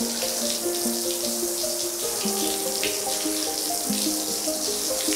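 Water sprinkling steadily from a plastic watering can's rose onto a rug, a continuous hiss, under calm background music with a slow melody of held notes.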